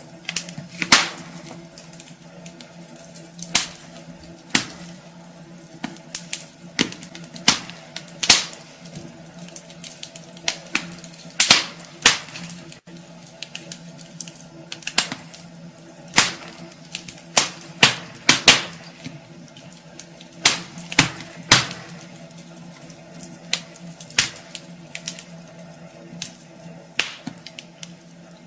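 Wood fire crackling in a fireplace: irregular sharp snaps and pops, some much louder than the rest, over a faint steady low hum.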